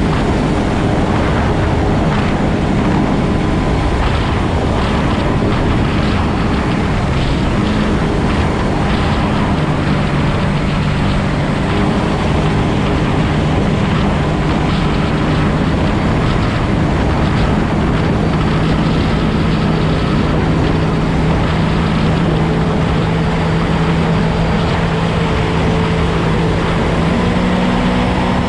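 Jet boat's 250 hp outboard jet motor running at speed, a steady engine note under a loud rush of wind and water spray. The engine pitch steps up slightly near the end.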